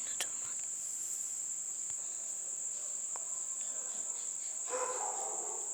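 Crickets trilling steadily with one continuous high-pitched note.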